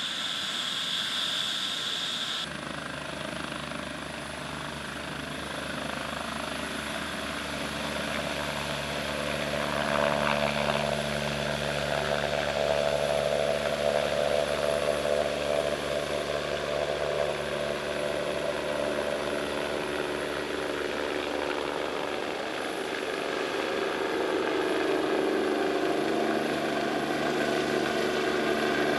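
Medical helicopter lifting off and climbing away: steady turbine whine over the rotor's beat, growing louder about ten seconds in and again near the end as it passes overhead.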